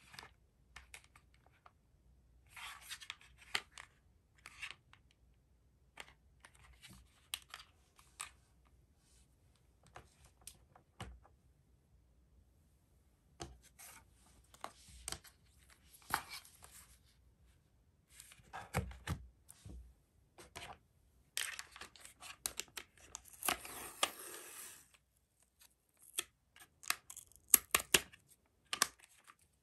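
Masking tape peeled off its roll and torn by hand, among light rustles and taps of cardboard sheets and a plastic tape case. The longest rasp of tape comes about two-thirds through, and a run of sharp clicks near the end.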